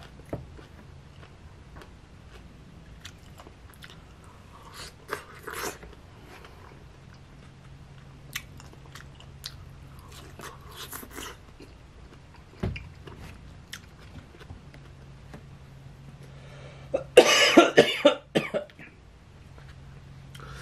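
Close-up chewing and biting of crisp sour green mango slices, with scattered wet mouth clicks and soft crunches. About three seconds before the end comes a loud fit of coughing.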